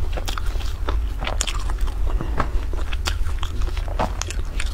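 Close-miked chewing of crusty bread: irregular crisp crunches and crackles, with a steady low hum underneath.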